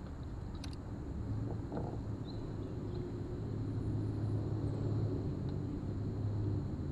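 Low outdoor rumble on the camera's microphone, with a low steady drone from about a second in until near the end and one sharp click about half a second in.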